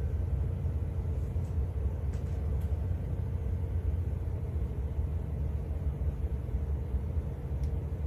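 Steady low rumble with a faint even hum above it: room noise inside an airport control tower cab.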